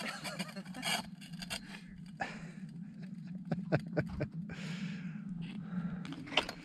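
A chair sliding and scraping across ice, with scattered knocks and clicks and a longer scrape about four and a half seconds in, over a steady low hum.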